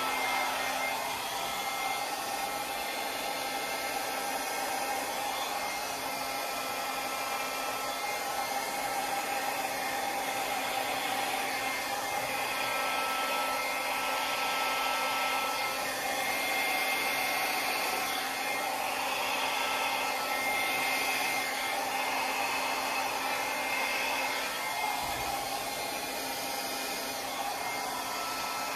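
Handheld hair dryer running steadily, a continuous rush of air with a faint hum, as it blows wet fluid acrylic paint across a canvas.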